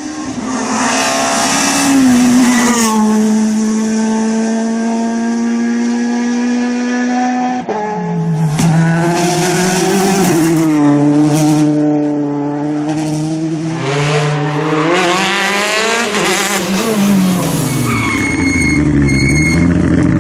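Rally car engine at high revs, its pitch held steady for a few seconds and then dropping sharply about eight seconds in, before rising and falling repeatedly through gear changes.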